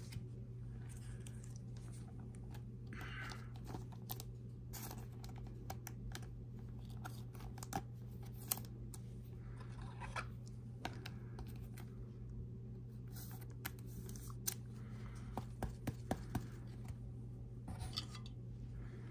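Trading cards and clear hard plastic card holders being handled, a card being fitted into its case: scattered light clicks, taps and scrapes over a steady low hum.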